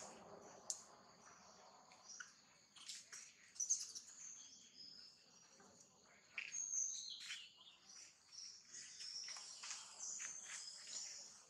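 Faint outdoor ambience: a steady, high-pitched insect drone with scattered short, high chirps and calls over it, some sliding down in pitch.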